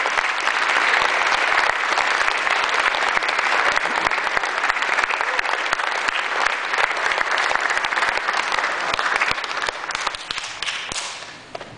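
Audience applauding, a steady dense clatter of many hands that thins out and dies away near the end.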